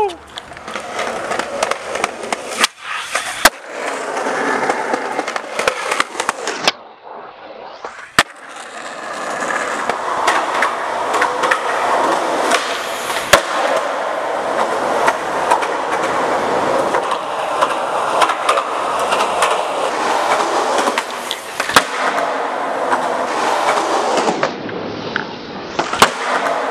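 Skateboard wheels rolling on concrete, with sharp clacks of the board striking the ground several times.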